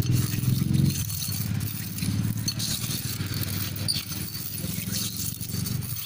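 A metal spoon scraping and clinking through stone aggregate and benzene in the metal bowl of a bitumen extractor, over the steady low running of an engine.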